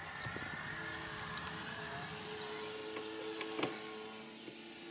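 Faint whine of a radio-controlled model airplane's engine in flight, sliding in pitch as it passes, with a sharp click near the end.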